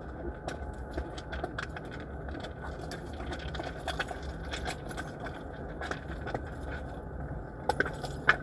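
Scattered clicks, knocks and scraping over a steady low rumble, with a sharper knock near the end.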